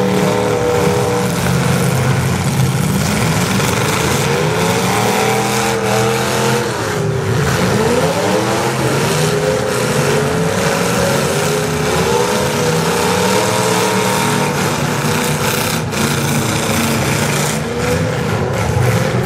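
Several demolition derby cars' engines running and revving at once, their pitches rising and falling against each other. There are a few sharp knocks, likely cars hitting, in the second half.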